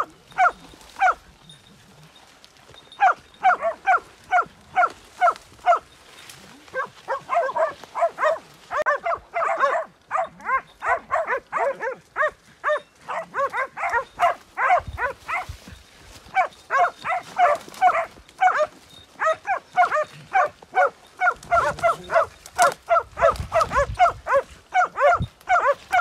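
Hunting dogs barking in long runs of about two to three barks a second, the barks sometimes overlapping, with a couple of short pauses: hounds baying on the trail of a wild boar.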